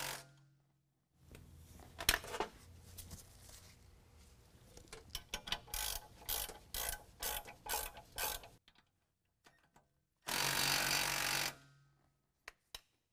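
Ratcheting wrench clicking in short irregular runs as nylock nuts are tightened down on carriage bolts, drawing an air-spring bracket down to the axle. About ten seconds in comes a louder steady rush of noise lasting about a second.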